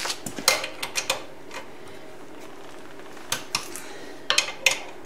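Sharp metallic clicks and clinks of a wrench working the front axle cap nuts on a 1973 Honda CB750's fork leg as they are drawn up to torque. The clicks come in two irregular clusters, one in the first second or so and another from about three to five seconds in.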